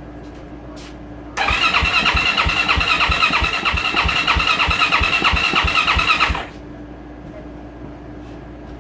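2024 Yamaha YZ450F's single-cylinder four-stroke engine being turned over by its electric starter for about five seconds: a steady starter whine over a regular beat of compression strokes. It starts and stops abruptly without the engine ever firing, a no-start.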